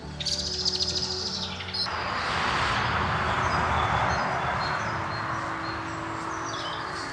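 A small bird's fast, high trill lasting about two seconds. Then a steady rustle and crunch of footsteps through dry fallen leaves.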